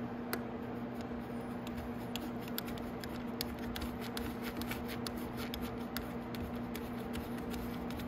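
Small, irregular clicks and taps of hands handling a plastic motorcycle headlight fairing while fitting a nut into it, over a steady background hum.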